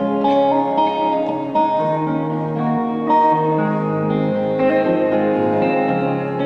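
An acoustic guitar and an electric guitar play together in an instrumental break with no singing. The notes are held and ring on, changing every half second or so.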